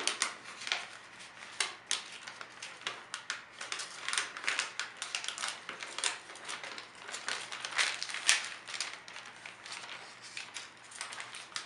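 Metallic gift-wrap paper crinkling and rustling as it is folded and tucked in by hand, in a run of irregular crackles.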